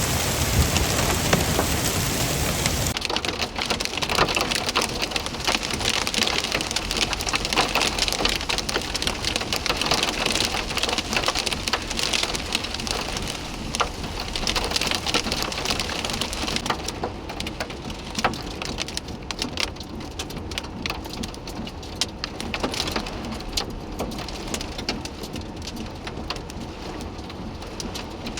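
Heavy rain pouring down, a dense hiss full of sharp drop hits on hard surfaces, easing somewhat in the last third.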